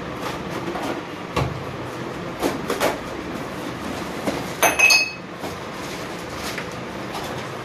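Bicycle parts and packaging being handled: a few short knocks and crinkles, then a sharp metallic clink that rings briefly about halfway through, over a steady background noise.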